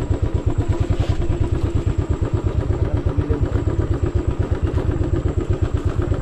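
Royal Enfield motorcycle engine running steadily at low revs, an even, rapid low thump.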